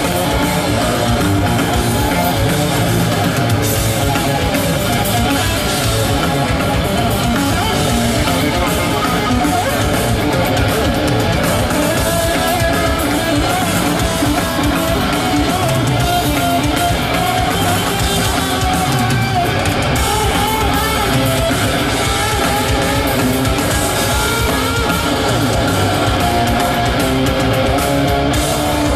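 Live rock band playing loudly in a stadium: drums, bass guitar and heavy electric guitar, recorded from within the crowd.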